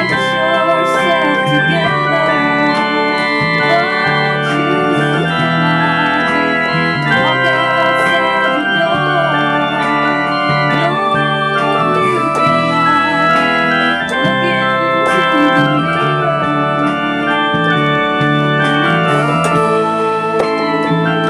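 Digital keyboard played with an organ-like voice: long held chords over a low bass line, mixed with a recorded song that it is played along to.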